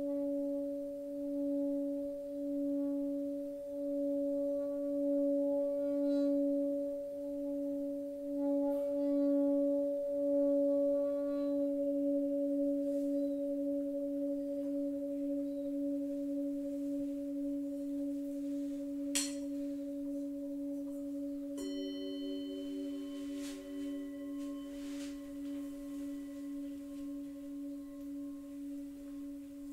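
Singing bowls ringing: a low bowl hums steadily with a slow, pulsing wobble. A brief bright strike sounds about 19 seconds in, and a couple of seconds later a second, higher bowl is struck and rings on alongside the first.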